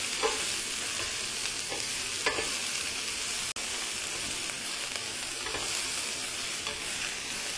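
Sliced red bell pepper and snow peas sizzling in hot oil in a skillet, a steady hiss as they are stir-fried until tender-crisp. A few light clicks of metal tongs against the pan come as the vegetables are tossed.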